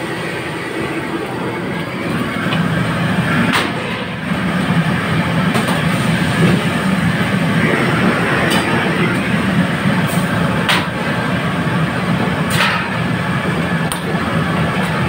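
Gas burner of a restaurant wok range running with a steady rushing noise under the wok, growing louder about two and a half seconds in. About seven sharp metal clanks of a ladle striking the steel wok come every second or two.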